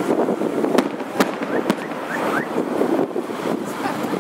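Fireworks going off, several sharp bangs in the first two seconds and a few short rising whistles, over a steady noise of traffic passing.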